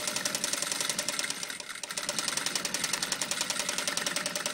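Industrial direct-drive sewing machine stitching free-motion quilting: a rapid, even run of needle strokes that eases briefly about one and a half seconds in, then carries on.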